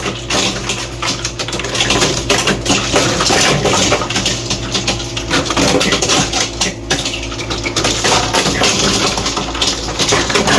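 Ice cubes dropping off a Hoshizaki ice machine's evaporator and clattering into the bin during the harvest cycle, released as hot gas warms the evaporator. Many irregular clinks and knocks sound over the machine's steady low hum.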